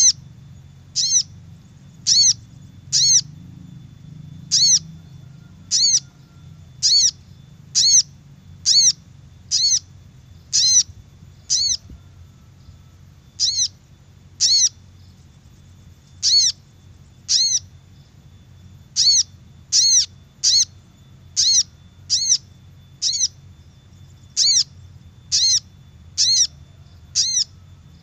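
Lure recording of a sogok ontong (sogon) bird's call: a short, high, arching note repeated about once a second, over a faint low hum.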